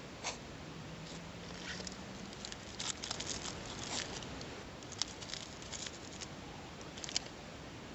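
Irregular light taps, clicks and rustling, a cluster of them about three to four seconds in and sharp single ticks near five and seven seconds.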